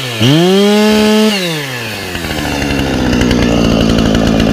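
Husqvarna 455 Rancher two-stroke chainsaw revved once, held high for about a second, then dropping back to a steady idle.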